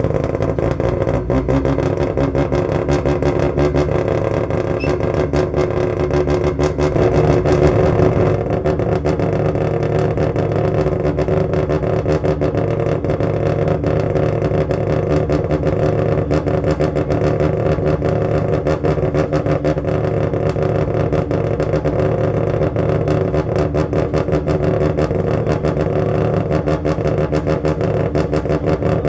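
Mazda RX-7 FD's twin-rotor 13B turbocharged rotary engine running steadily at constant revs, with a fast, pulsing exhaust note. It swells slightly around seven to eight seconds in, then settles back.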